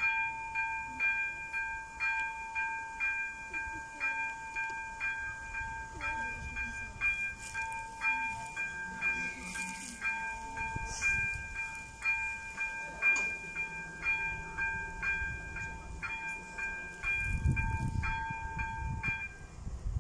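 Level-crossing warning signal ringing: a steady electronic tone with rhythmic dings about twice a second, which stops shortly before the end. A low rumble rises briefly near the end.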